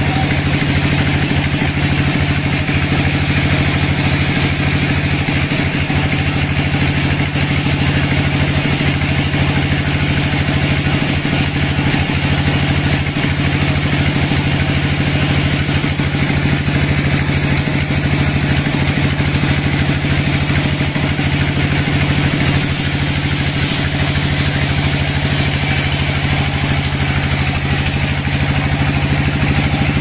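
Sawmill's engine running steadily at a constant speed, an even mechanical drone that holds the same pitch throughout.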